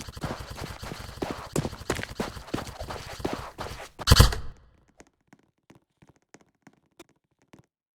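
A quick irregular run of sharp clicks and knocks from an airsoft game, with one loud bang just after four seconds in; after that the sound drops to near silence with only a few faint ticks.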